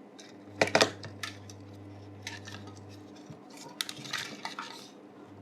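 Small plastic parts of an opened toy RC car being handled and pushed into place: scattered light clicks and taps, the sharpest just under a second in, over a faint steady hum.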